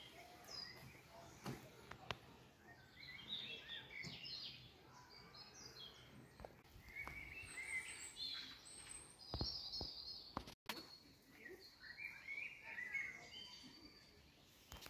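Faint chirps and short snatches of song from small wild birds over quiet outdoor background noise; the sound cuts out for an instant about two-thirds of the way through.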